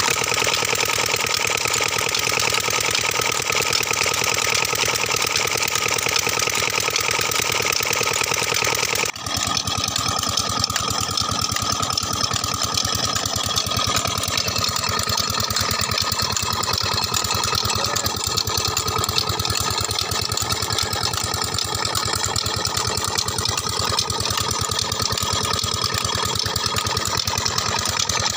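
Old stationary diesel engine running steadily under load, driving a water pump through a long flat belt, with an even, fast beat. About nine seconds in the sound dips briefly, and after that the high hiss is softer.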